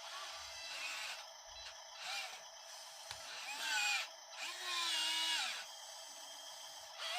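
Small electric motors of 1:50-scale RC construction-vehicle toys whining in several short runs, starting and stopping, their pitch rising and falling; the longest run is about a second, about two-thirds of the way through.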